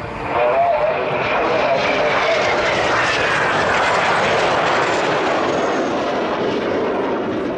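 Alpha Jet's twin turbofan engines roaring as the jet flies past, loud, with a whine that falls in pitch as it goes by.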